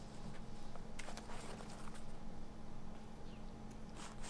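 Faint rustling and a few light knocks from hands pressing cotton wadding and folding a fabric-covered door-card pocket on a wooden table, around one second in and again near the end, over a low steady hum.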